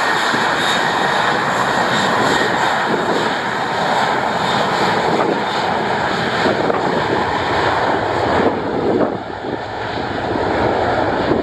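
Boeing 737-800's CFM56-7B turbofan engines at takeoff thrust during the takeoff roll: a loud, steady jet noise with a high whine over it. The whine fades about eight seconds in and the noise grows uneven.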